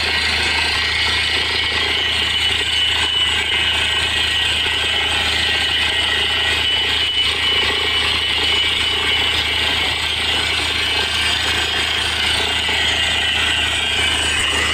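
Truck-mounted borewell drilling rig running steadily, its engine and air compressor droning while compressed air blasts water up out of the bore: the hole has struck water.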